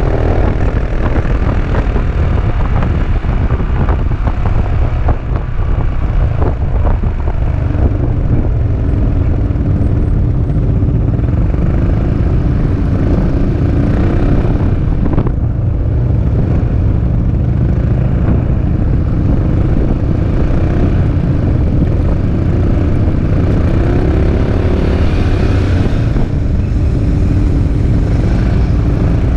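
Peugeot Metropolis three-wheeled scooter under way at road speed: steady wind rumble on the microphone over the hum of its single-cylinder engine, whose pitch rises and falls a little with the throttle.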